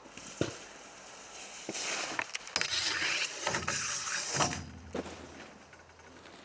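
Skis grinding down a metal handrail: a scraping hiss lasting about three seconds with a few clicks in it, then a single knock about five seconds in.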